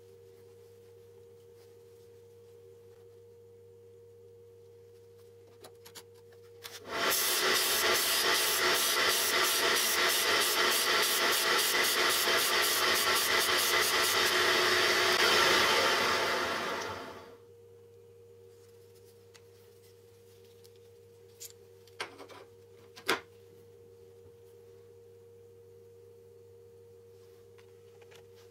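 Disc sander running for about ten seconds while a twist drill bit, held in a sharpening jig, is ground against the abrasive disc, then winding down. A couple of sharp clicks follow near the end.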